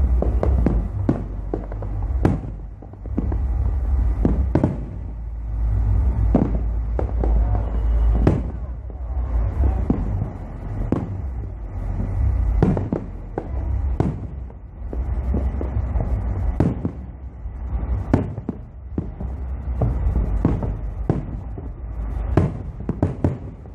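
Fireworks display: an irregular run of bursts going off one or two a second, sharp cracks and deeper booms, some echoing, over a steady low rumble.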